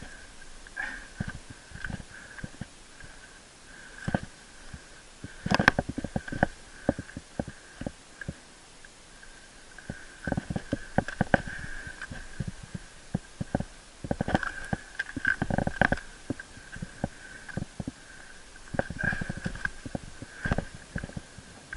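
Muffled, irregular thuds, scuffs and rubbing of a body-mounted GoPro in its housing as a climber scrambles over rock, with the knocks heaviest about six seconds in and again in the middle and near the end. A faint steady high tone sits underneath.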